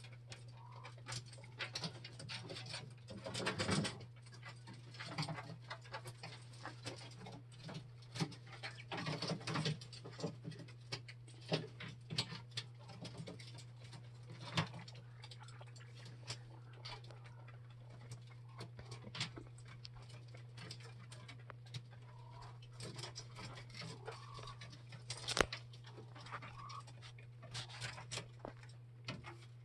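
Coturnix quail shuffling and pecking on a wire-mesh cage floor: scattered light taps and scratches, a few louder than the rest, over a steady low hum.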